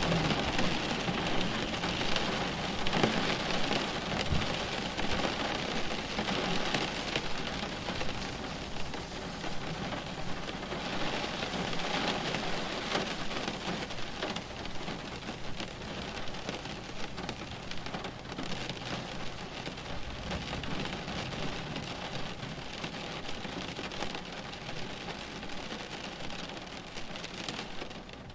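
A thunderstorm: steady rain pattering on surfaces, with low thunder, slowly fading in level.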